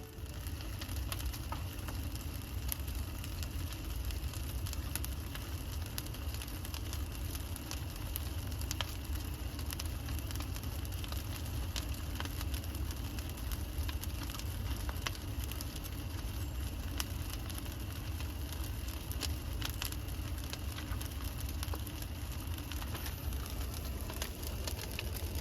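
Burning brush pile crackling and popping with many sharp snaps, over a steady low rumble.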